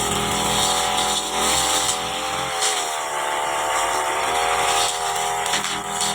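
Petrol brush cutter engine running at high speed, its pitch wavering, with a dip about three seconds in before it rises again.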